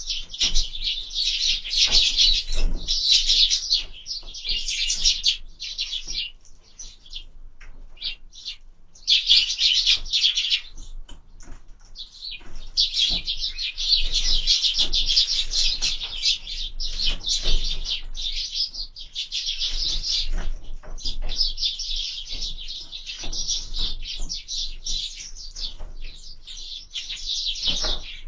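A group of sparrows chirping busily and almost without pause. There is a short lull about a quarter of the way in and another just before halfway.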